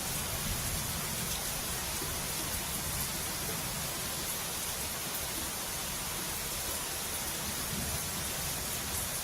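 Heavy rain and rushing flood water making a steady, even hiss that does not change.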